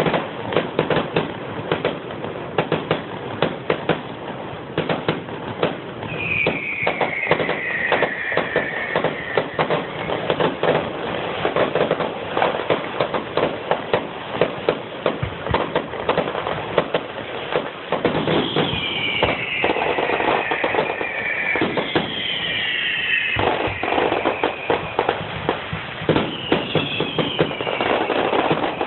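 Fireworks going off in rapid, continuous crackles and pops. Several whistles fall in pitch through it: one about six seconds in, and three more in the second half.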